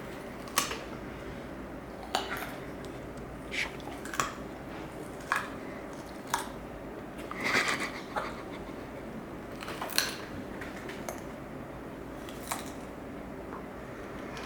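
Foley sound effects made with small hard objects: a string of separate sharp clicks and clacks at uneven intervals, about one every second, with a longer clatter about halfway through.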